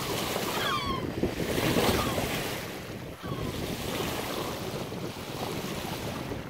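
Bow wave of a sailing yacht under way, water rushing and splashing along the hull, with wind buffeting the microphone. A few short high squeaks sound in the first second or so.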